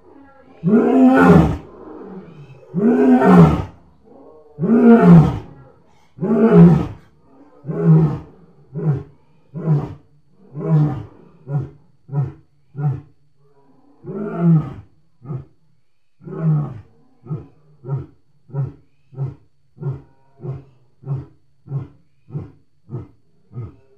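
A lion roaring in a full bout: four long, loud roars, then a string of about twenty shorter grunting roars that come quicker and shorter as the bout winds down.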